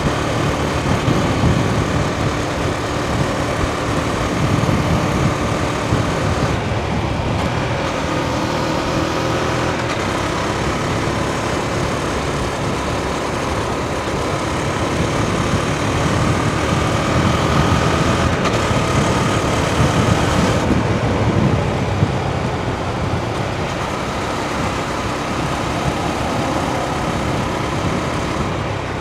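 Husqvarna Svartpilen 401's single-cylinder engine running, its revs slowly rising and falling, with a knocky sound that seems out of oil but that the owner puts down to the engine's design and tuning, the oil level being fine.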